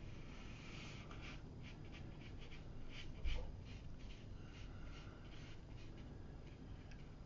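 Watercolour brush stroking paint onto paper in soft, faint, irregular scratchy strokes, with one low bump about three seconds in.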